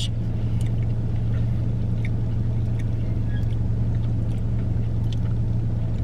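Steady low hum of a car idling, heard from inside the cabin, with a few faint small clicks.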